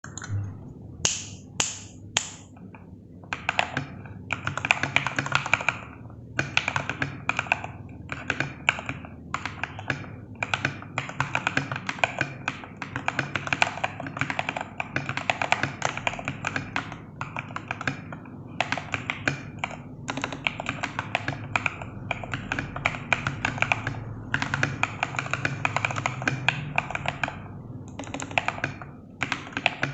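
Royal Kludge RK68 Plus mechanical keyboard, modded with lubed Gateron Milky Yellow linear switches, PE foam, a cotton pad and XDA PBT keycaps, being typed on; its sound is thocky. A few single keystrokes come first, then fast runs of typing in bursts with short pauses between them.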